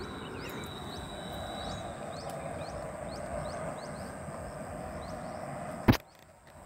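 Outdoor riverside ambience: a steady hiss with a run of short, high, falling chirps and a thin, steady high tone. Near the end a single sharp click is heard, and the sound then drops away suddenly.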